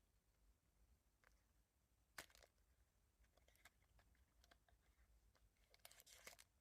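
Near silence with a few faint clicks, then a light crackly rustle of blind-box packaging being handled near the end.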